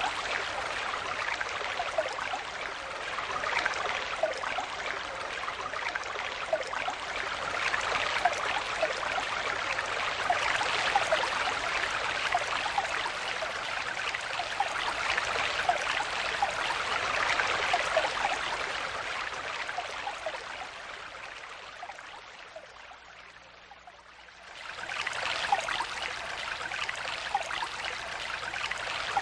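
Stream water flowing and babbling, a steady rush with many small bubbling gurgles. It fades lower for a few seconds, then returns abruptly at full strength about four seconds before the end.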